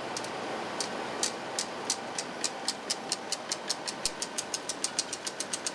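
Cinemeccanica Victoria 8 35mm projector mechanism clicking regularly, the clicks speeding up from about two to about six a second, over a steady background hum.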